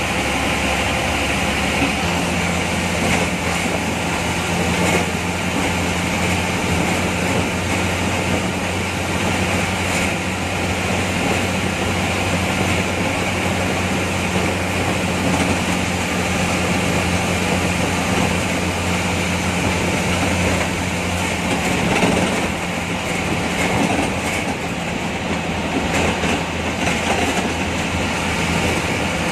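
MSRTC bus heard from inside the driver's cabin while under way: its engine runs with a steady low drone over constant road and cabin noise. The drone starts about two seconds in and fades back into the general noise some twenty seconds in.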